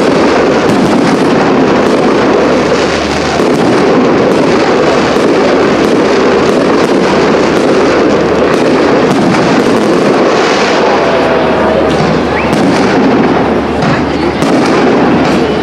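Fireworks display: aerial shells bursting one after another, with many sharp bangs and crackles over a continuous loud din.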